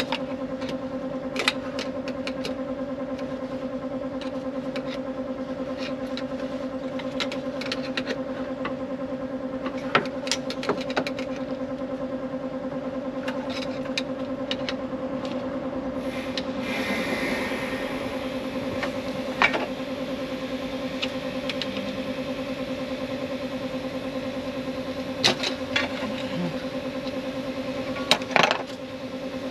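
Scattered metallic clicks and knocks of hand work on a truck engine's thermostat housing as the old thermostat is pulled out, over a steady machine hum.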